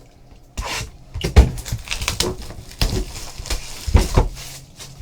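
Trading card box packaging being opened and handled: irregular crinkling, tapping and knocking of cardboard and wrapping, starting about half a second in.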